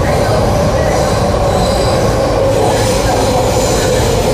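MTR C-Train metro car running between stations, heard from inside the passenger cabin: a steady rumble of wheels on rail with a strong hum and a faint high whine above it.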